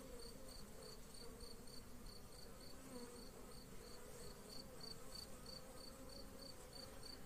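Honeybees humming faintly around an opened hive frame, a steady low drone. A high, even chirp repeats about four times a second through it.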